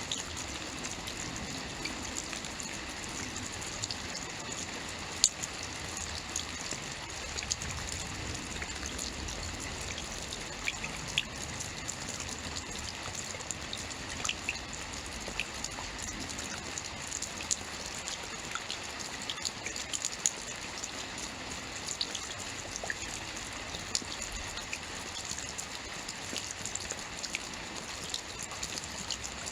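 Steady rainfall with scattered sharp drops ticking on a surface.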